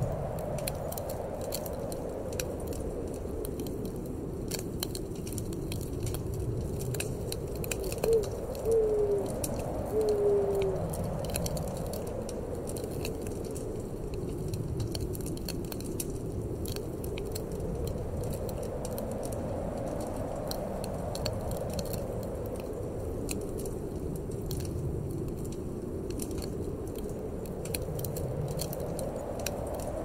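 Wood fire crackling in a fireplace under a hollow, eerie wind that slowly rises and falls in pitch. About eight seconds in come three short, slightly falling calls, the loudest sounds in the stretch.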